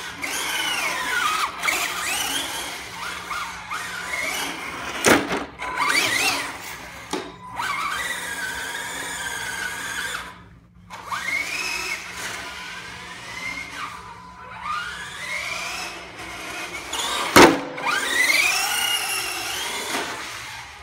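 ECX Torment 1/10-scale electric RC truck driven hard on a concrete floor. Its motor and gears whine up and down with the throttle while the tyres squeal and scrub through donuts. Two sharp knocks, about five seconds in and again about seventeen seconds in, are the loudest sounds.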